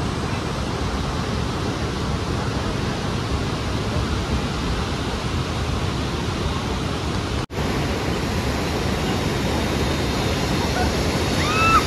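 Steady rushing noise, loudest in the low end, broken once by a brief gap a little past halfway.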